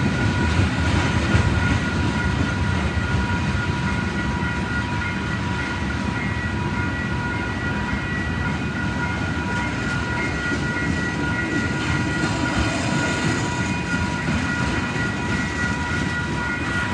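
Long freight train's cars rolling steadily past at a grade crossing, wheels rumbling and clacking over the rails, with steady high-pitched tones over the rumble; the lowest tone drops out about two-thirds of the way through.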